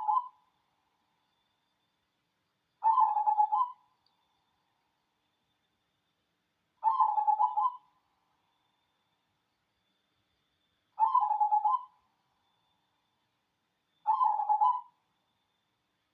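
Zebra dove (perkutut) of the black 'cemani' strain cooing in full song: four short phrases of rapid staccato coos, each about a second long, repeated every three to four seconds.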